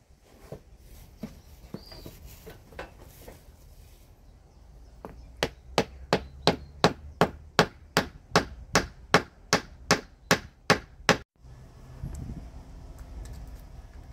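Claw hammer striking the end of a wooden staff, compression-fitting an epoxied copper end cap onto it. A few light taps lead into about fifteen hard, regular blows, two or three a second, which stop abruptly about three seconds before the end.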